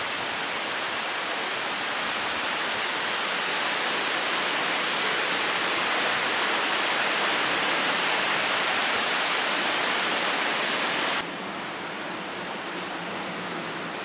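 Wind rustling through leafy trees: a steady, even hiss that swells slightly. About eleven seconds in it cuts off abruptly to a quieter hiss with a faint low hum.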